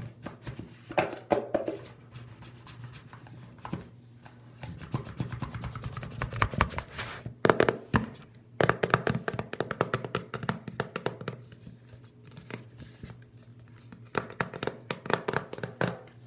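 Fingernails tapping and scratching on a white cardboard iPhone box, in quick runs of light taps with short pauses between them.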